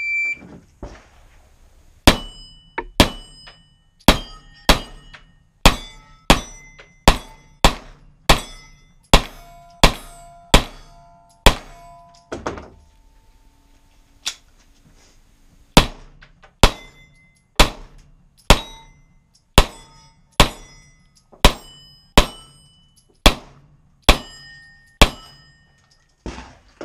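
A shot timer's short start beep, then a long run of rapid pistol shots, roughly two a second with a pause of about three seconds midway. Many shots are followed by the brief ring of steel plate targets being hit.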